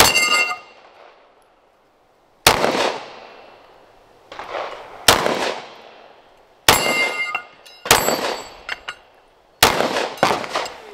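Glock 43X 9mm pistol fired slowly, about six shots a second or two apart, several of them followed by a short metallic ring.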